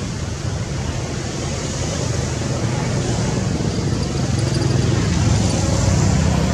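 Steady outdoor background noise: a low rumble under an even hiss, growing slightly louder toward the end.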